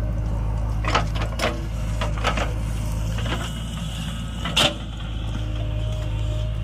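JCB 3DX backhoe loader digging soil: a steady diesel engine hum with a handful of short clanks and scrapes from the backhoe bucket, the loudest about four and a half seconds in.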